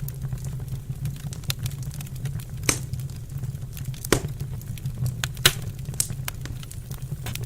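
Wood fire burning in a fireplace, crackling with irregular sharp pops over a steady low rumble of the flames; a few louder snaps stand out, the loudest about five and a half seconds in.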